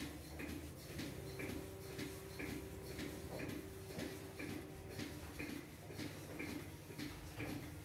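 Regular mechanical ticking, about two light ticks a second in an even repeating pattern, with a faint steady hum for a few seconds in the middle.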